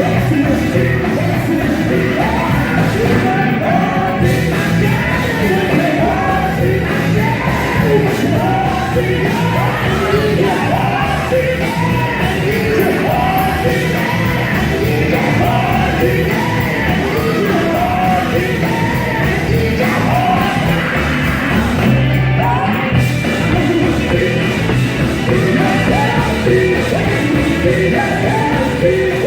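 Live gospel quartet music: a full band playing with singing voices over it, loud and unbroken.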